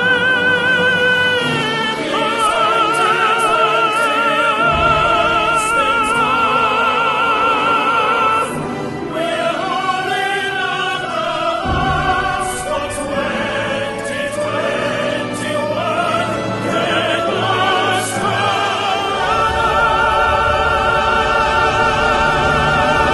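A male singer singing in operatic style, holding long notes with a wide vibrato over instrumental backing.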